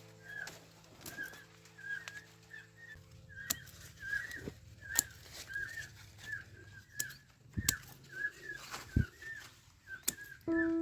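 A bird calling in a regular series of short, high chirps, about two a second, with scattered sharp clicks among them. Music fades out at the start and comes back near the end.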